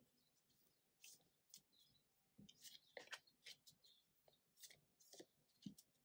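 Faint shuffling of a deck of oracle cards by hand: irregular soft clicks and slides as the cards are split and dropped back onto the deck.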